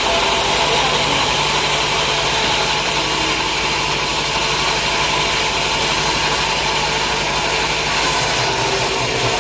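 Sawmill machinery running steadily with a constant mechanical drone and a low hum; the sound changes slightly about eight seconds in.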